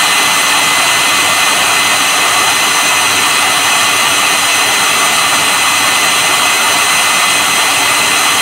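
Handheld hair dryer running steadily, blowing hot air: a loud rush of air with a steady motor whine.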